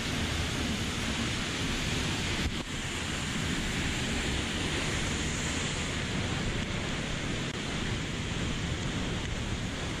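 Waterfall in a ravine: a steady, even rush of falling water.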